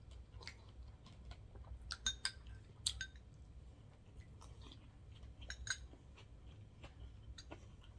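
Close-miked chewing of sushi: irregular soft wet mouth clicks and smacks, with a few small clicks now and then.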